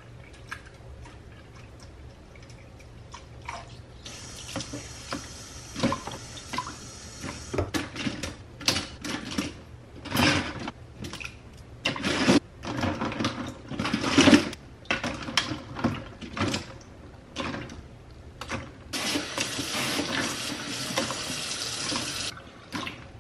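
A steady stream of liquid running into a plastic tub of blue Barbicide disinfectant solution in a stainless steel sink, twice, with a stretch of irregular clatters and splashes between as plastic combs, hair clips and brushes are dropped into the solution and handled.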